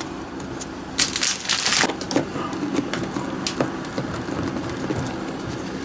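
Hand handling noise from pressing wood-flour clay between plaster rock castings on a model diorama: scattered light clicks, taps and rustling, with a louder rustle about a second in.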